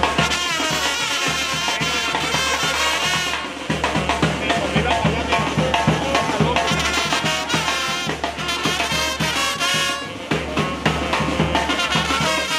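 Panamanian murga brass band playing: trumpets and trombones over a steady drum beat.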